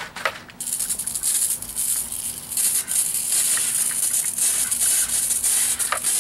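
Hand-pump garden sprayer spraying a mix of water and glow-in-the-dark crystals through its wand nozzle: a steady hiss that starts about half a second in, after a couple of short clicks.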